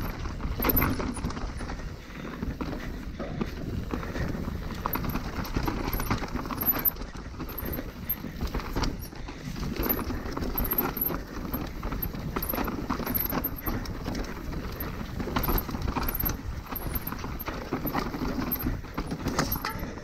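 Mountain bike riding fast down a dirt singletrack: knobby tyres rolling over dirt and roots, with the bike rattling and knocking irregularly over the bumps.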